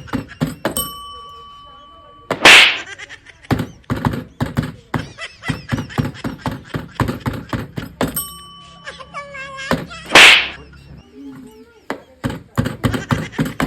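A quick run of knocks, then a bell ding held steady for about a second and a half, then one very loud slap. The same knocks–ding–slap sequence comes again about eight seconds later.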